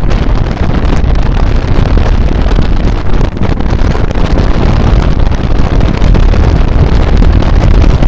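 Strong wind buffeting the microphone: a loud, steady low rumble that flutters with gusts.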